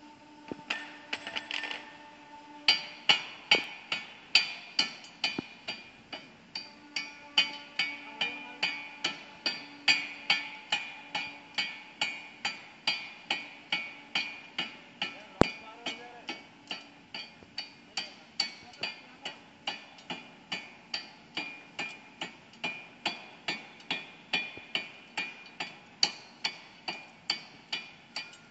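Pneumatic forging hammer striking the workpiece in a steady rhythm of about two blows a second, each blow ringing metallically. A few irregular blows come first, then even hammering from about three seconds in.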